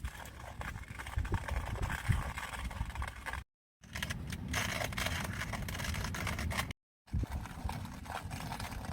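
Wind buffeting the microphone in a steady low rumble, with scattered light knocks and rustles. The sound cuts out abruptly twice, about three and a half and seven seconds in.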